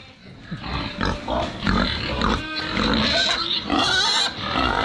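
Pigs grunting and squealing in a run of short, irregular calls, with a shriller squeal near the end.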